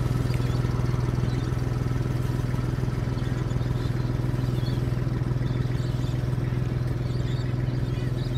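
Ride-on double-drum roller's engine running at a steady low hum as the roller drives along, rolling the cricket pitch.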